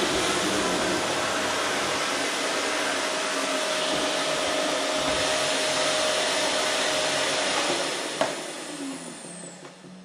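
Electrolux canister vacuum cleaner running steadily, then a sharp click about eight seconds in and the motor winds down with a falling whine.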